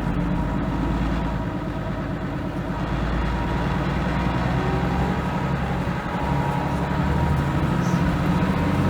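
Leyland National Mk2 bus's Leyland L11 six-cylinder diesel engine running under way. The engine note dips briefly about six seconds in, then picks up again.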